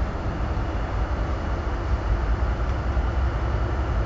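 Tugboat's diesel engines running steadily, a low rumble heard from inside the wheelhouse.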